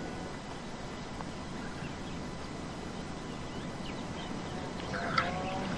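Quiet outdoor ambience: a steady low background hum with a few faint high chirps. A brief faint voice and a small click come near the end.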